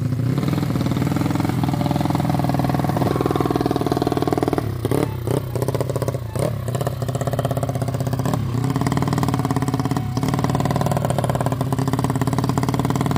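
Small motorcycle engine running at a steady speed while riding, with a few brief dips in engine speed around the middle and again near the end.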